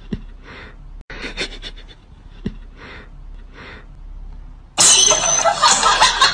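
A cat sniffs repeatedly at a socked foot, in short soft sniffs a little under once a second. About five seconds in, a sudden loud, harsh noisy outburst takes over.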